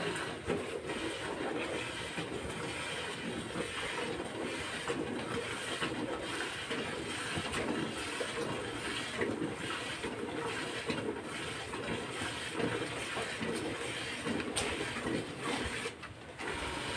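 Cow being milked by hand into a steel bucket: a steady run of milk squirts hitting the bucket, with a brief pause near the end.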